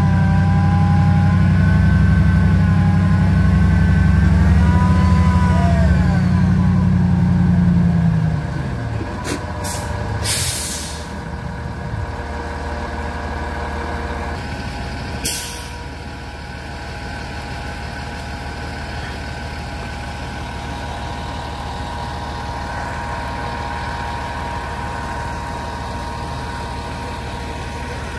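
Sterling medium-duty truck's diesel engine running hard under load while hauling a trailer-borne houseboat up a ramp, then easing off about eight to ten seconds in. Short air-brake hisses come around ten seconds in and again near fifteen seconds, and after that the engine idles steadily.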